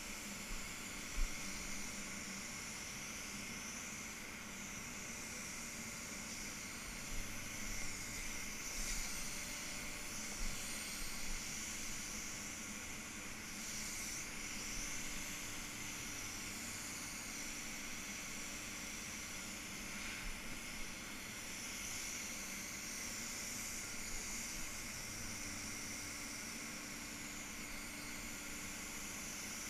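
Gravity-feed paint spray gun hissing as paint is sprayed in repeated passes, the hiss swelling and easing every few seconds, over a steady low hum.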